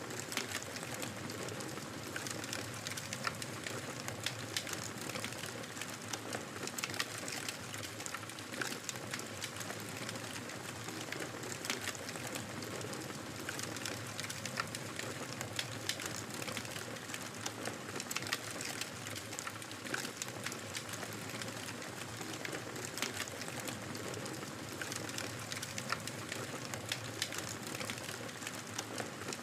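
Fireplace fire crackling: a steady hiss with frequent sharp pops and snaps scattered irregularly throughout.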